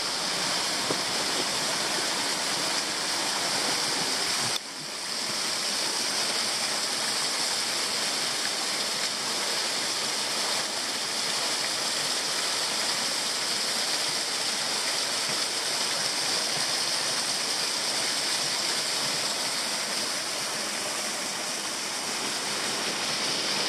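Mavista Falls, a small waterfall with only a light flow, with water falling and splashing steadily down its rock face. There is one brief break in the sound about four and a half seconds in.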